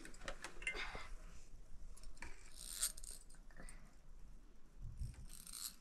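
Light clicks and scrapes of hands handling a portable electric sewing machine whose bobbin thread has run out, with fabric rustling; the machine's motor is not running.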